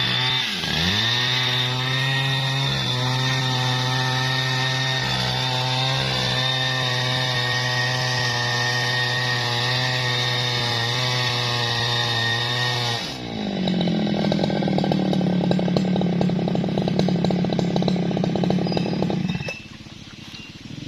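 Jonsered chainsaw running at high revs as it rips lengthwise through a bendo log, its pitch dipping briefly twice near the start. About two-thirds in the note drops to a lower, rougher running, and near the end the sound falls away sharply.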